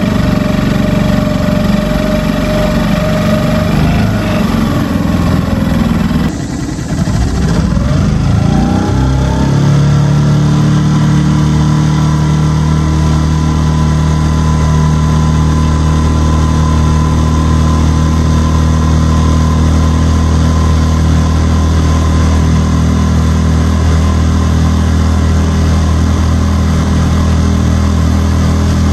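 Hangkai 6.5 hp four-stroke outboard motor running a small jon boat under way. About seven seconds in, its revs climb over two or three seconds, then hold steady.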